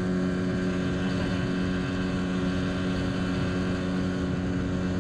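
Boat's outboard motor running at a steady speed, with water and wind noise.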